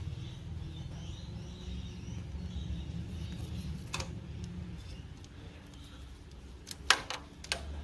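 Hands handling motorcycle wiring and engine parts: a few sharp clicks and taps, one about four seconds in and a quick cluster near the end, the loudest about seven seconds in, over a low steady rumble.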